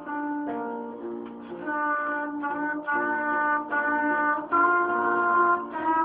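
Trumpet playing a melody of held notes that change every half-second to a second, over a piano accompaniment.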